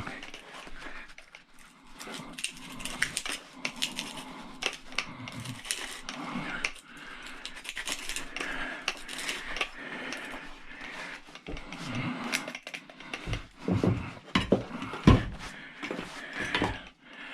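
Metal clinking and clattering as tools and parts of an old battery charger are handled and worked on during a teardown, with several heavier knocks near the end.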